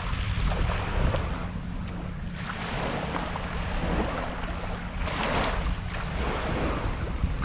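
Surf waves breaking and washing up the beach, two swells louder than the rest, about two and a half and five seconds in, over low wind rumble on the microphone.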